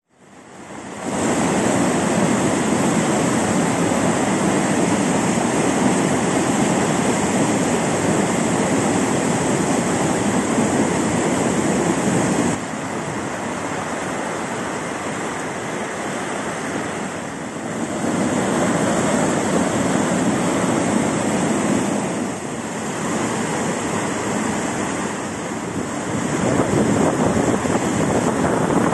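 Manavgat waterfall: river water rushing over a wide, low ledge and churning through white-water rapids, a loud, steady rush. It fades in over the first second, drops somewhat about twelve seconds in, and swells again near the end.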